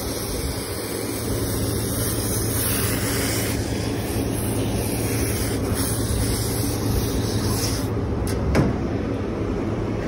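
Hose spray nozzle hissing as a jet of water is driven through the fins of a dirty condenser coil, over a steady low rumble. The spray drops away about two seconds before the end, followed by a single sharp click.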